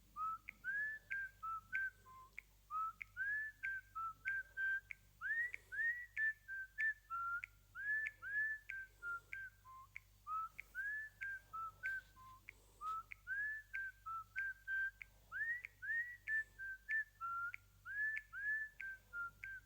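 Whistled-tune ringtone playing on a Huawei Y6s (2019) phone: a quick, bright melody of short whistled notes, many sliding upward, repeating over and over.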